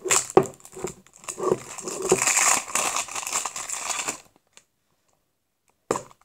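Plastic packaging of a tub of gummy slime crinkling and clicking as it is handled and unwrapped, for about four seconds. It then goes quiet, and a single sharp knock comes near the end.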